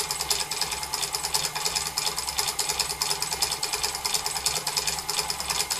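Variable-speed lathe with a DC motor drive running steadily, its chuck turning at about 750 rpm, with a fast, even rattle over a low hum from the machine's vibration.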